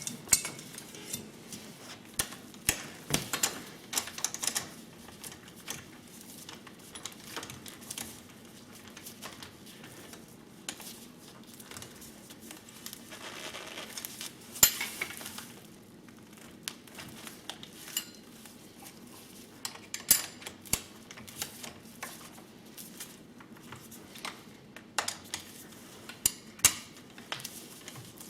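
Intermittent metallic clicks and clinks, some in quick clusters: an Allen key and a spanner working on the handlebar clamp bolts of a pit bike as they are tightened.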